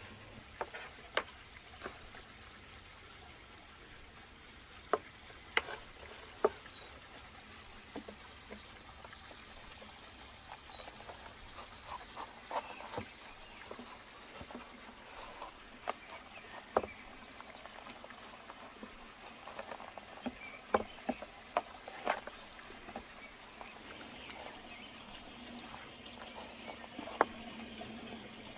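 Hand food preparation on a wooden cutting board: irregular sharp knocks and clicks as a metal skewer and knives are handled and vegetables and chicken are pushed and set down on the board. A few short high chirps sound over a faint steady background.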